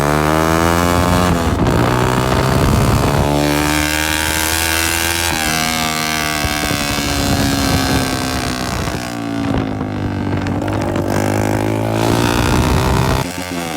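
Honda CG 125's single-cylinder four-stroke engine running loud through a silencer cut open in the middle. Its pitch rises and falls with the throttle: dropping at first, climbing about three seconds in, easing down slowly, then dropping again near the end.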